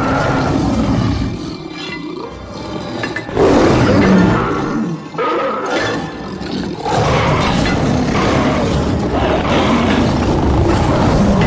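Film creature roars of a sabre-toothed cat (Smilodon), heard over soundtrack music. The loudest roar starts abruptly about three and a half seconds in.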